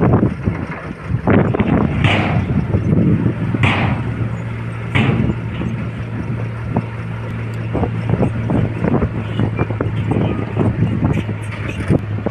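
Volvo excavator's diesel engine running at a steady pitch, with irregular crackling and knocks of soil being scooped and dumped. Three short hisses come in the first five seconds.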